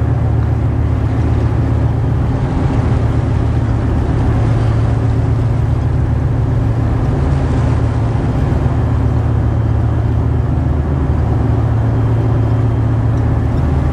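Deep, steady drone of a 7200 hp Voith Schneider tugboat's diesel engines working at about half power, with the rush of the propeller wash churning the water behind it.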